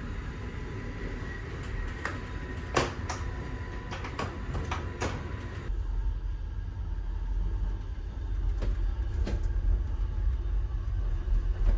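Steady low rumble of a moving passenger train heard from inside a car, with a few sharp clicks and knocks between about two and five seconds in. A little before halfway the rumble abruptly grows louder.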